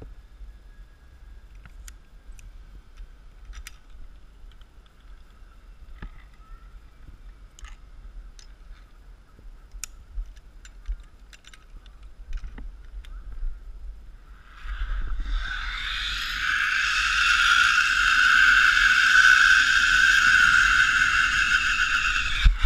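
Zipline trolley running along a steel cable: a whine with a stack of high tones that comes in about two-thirds of the way through, rises in pitch as the rider picks up speed, holds steady for several seconds and stops suddenly near the end. Before it, a faint steady tone with scattered small clicks and low wind rumble on the microphone.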